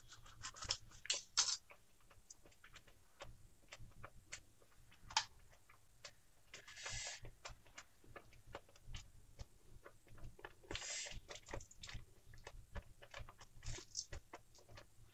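Thick tomato ketchup simmering in a steel kadhai over a medium gas flame: irregular small pops and clicks as bubbles burst in the sauce, with a short hiss about seven seconds in and again about eleven seconds in.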